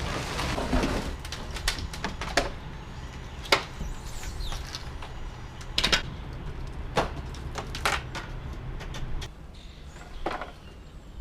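Irregular sharp knocks and clunks, about eight of them, over a low steady hum that drops away about nine seconds in.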